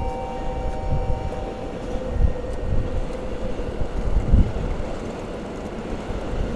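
Train moving along the track at a station: a steady rumble with irregular low thumps and a faint steady whine.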